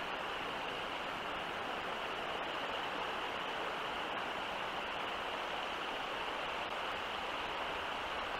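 Steady, even outdoor background hiss with no pitch or rhythm; no howl or other call from the wolf.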